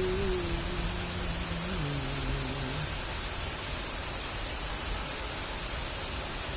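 Steady rain falling, with a person humming long held notes for about the first three seconds.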